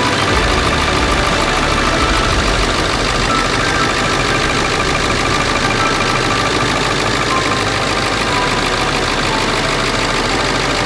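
Ford 7.3 Powerstroke turbo-diesel V8 running steadily just after starting. It is warmed by its block heater and has a newly replaced engine wiring harness.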